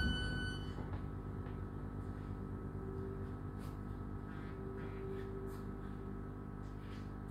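Steady electrical hum inside a Class 323 electric multiple unit standing at a platform. A high steady tone stops abruptly under a second in.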